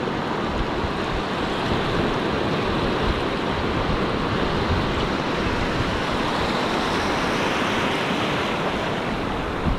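Shallow surf washing in over a flat sandy beach: a steady rush of breaking waves and foam, with wind buffeting the microphone in a low, flickering rumble.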